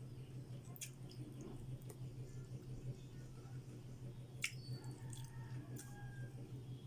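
Eating sounds: a few sharp wet mouth clicks and smacks, spaced a second or more apart, over a steady low hum.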